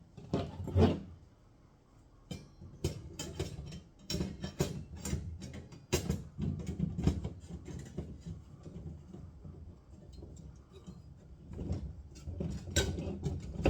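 Steel puzzle pieces clinking and scraping against each other as the butterfly's wing pieces are slid into the slots of its body: a string of irregular clicks and taps.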